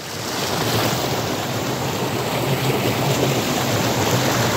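River water rushing and splashing over rocks close to the microphone, a loud, steady rush.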